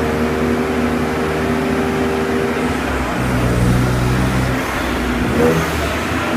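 BMW 335i's N54 twin-turbo straight-six running steadily at low load on a chassis dyno, its note changing for a second or so midway. A steady hum from the dyno's large cooling fan runs beneath it.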